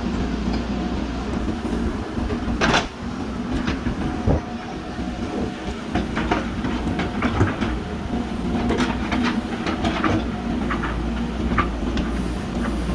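JCB backhoe loader's diesel engine running steadily while digging, with scattered metallic clanks and knocks throughout, the loudest about three seconds in.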